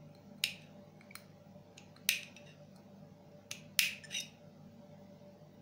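About six sharp clicks and taps from hands working on a laser module's metal housing and its small internal parts, spread over about four seconds, the loudest near the end.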